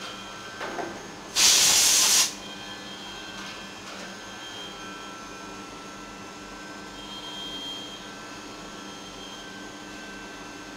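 Steady machine hum with faint steady whining tones, broken about a second and a half in by a loud hiss of compressed air lasting about a second.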